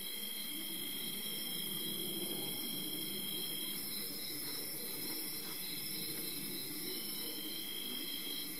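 Night insects such as crickets chirring steadily in several overlapping high pitches, over a faint low rushing noise.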